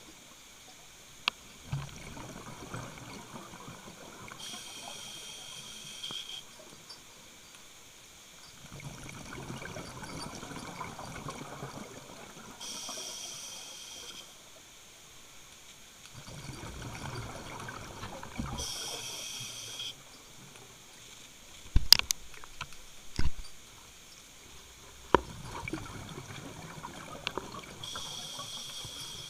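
Scuba diver breathing through a regulator underwater: a short high hiss on each inhale and a rush of bubbles on each exhale, repeating about every seven seconds. A few sharp knocks come about two thirds of the way through.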